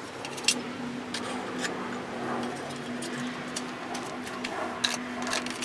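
Hand tools clicking and clinking irregularly on a Honda HR214 lawnmower engine as it is taken apart for a head gasket job, over a steady low hum.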